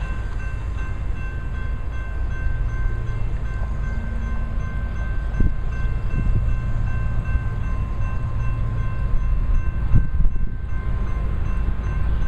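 Railroad grade-crossing bell ringing rapidly and steadily as the crossing gate arm lowers, over a steady low rumble.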